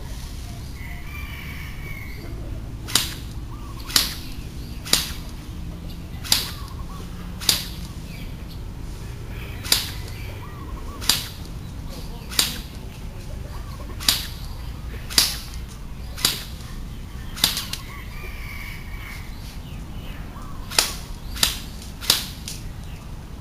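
JingGong MAC10 electric airsoft gun firing single shots, each a sharp snap, about fifteen of them at roughly one a second, with short pauses between runs.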